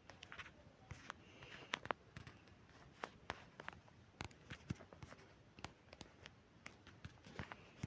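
Faint, irregular clicks and taps, a few every second, some a little sharper than the rest.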